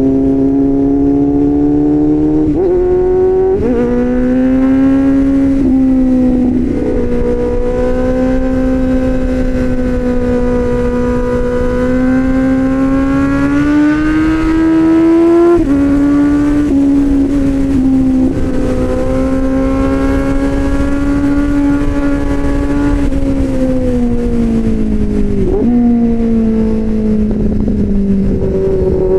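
Motorcycle engine with an aftermarket SC-Project-style exhaust, ridden on a winding climb: a steady exhaust note that rises and sags with the throttle and steps sharply in pitch at several gear changes, with wind rumble on the microphone.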